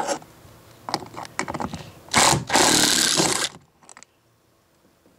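Power screwdriver backing out the Torx screw in a door-pull cup, running in a short burst and then a longer run of about a second, about two seconds in. Light clicks of the bit being seated come before it.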